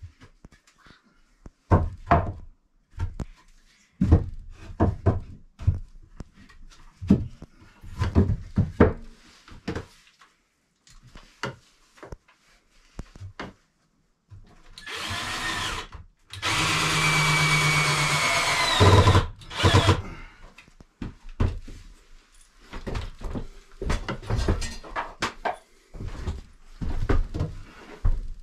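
Cordless drill driving screws into a rough-cut lumber cabinet frame: a short run about halfway through, then a longer run of about three seconds. Short knocks of wood come before and after.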